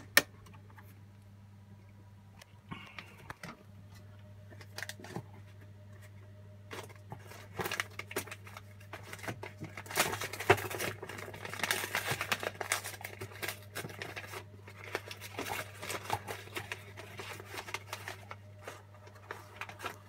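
Hands handling plastic and metal parts inside an open HP Z620 workstation case: scattered clicks and knocks, with a denser stretch of rustling and crinkling about ten seconds in, over a low steady hum.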